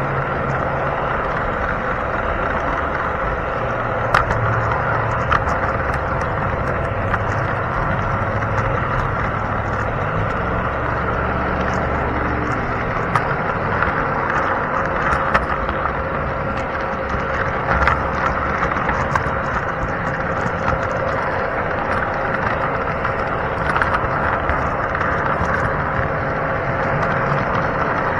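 Large O scale model train running on its track, heard from on board a car: a steady running noise with a steady whine, broken by frequent short sharp clicks.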